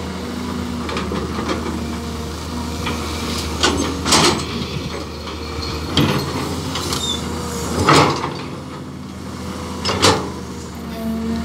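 CAT hydraulic excavator's diesel engine running steadily under load while it digs and loads soil. About five loud scraping, crashing bursts come through it as the bucket cuts into the dirt and dumps its load into the dump truck's steel bed.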